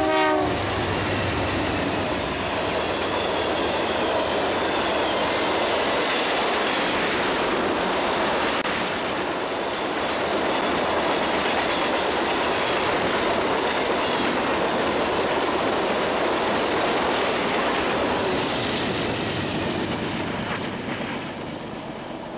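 BNSF freight train passing close by: the tail of a horn blast about half a second in, then the diesel locomotives and a string of tank cars rolling past with wheels clattering on the rails. The noise eases off near the end as the last cars go by.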